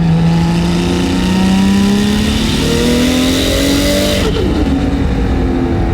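Nissan Skyline R32 GT-R's HKS 2.8-litre stroker RB26 straight-six with a T04Z turbo, accelerating hard, heard from inside the cabin. Revs rise steadily with a loud rushing hiss for about four seconds, then drop sharply as the hiss cuts off, and climb again. The engine is running on the boost controller's low-boost setting.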